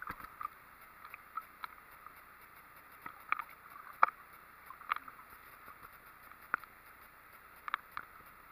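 Small sea splashes and water slapping close to a phone held at the surface while swimming: scattered short, sharp splashes, the loudest about four seconds in, over a faint steady hiss.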